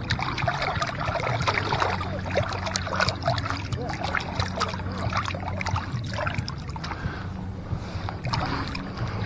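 Shallow lake water splashing and sloshing around a wading angler's legs, with many small splashes and drips throughout.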